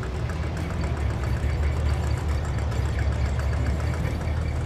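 Custom 1966 Cadillac DeVille's engine running steadily at low speed as the car creeps forward, a low-pitched sound with an even pulse.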